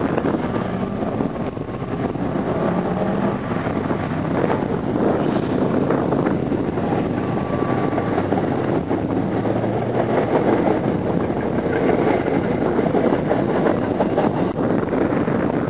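Autocross car's engine running hard around the course, a steady engine noise with revs rising and falling.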